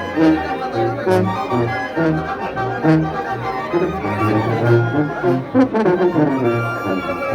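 A brass band playing a tune, with horns over a line of low bass notes that move in a steady beat.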